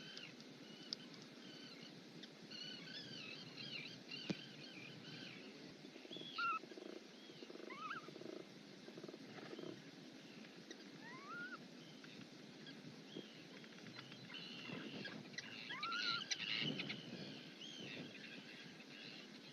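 Auks calling in a seabird colony: many overlapping short chirps and rising whistles over low growling calls, busiest and loudest about three-quarters of the way through.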